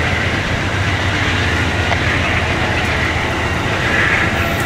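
Amtrak Northeast Regional passenger cars rolling past close by, with a steady rumble and rush of steel wheels on the rails.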